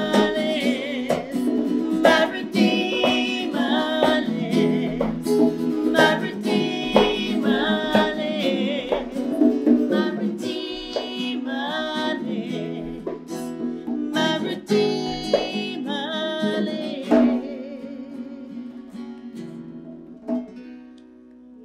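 Live worship band: women singing over strummed acoustic and electric guitars and hand-played conga drums. The singing stops about seventeen seconds in, and a last chord rings out and fades as the song ends.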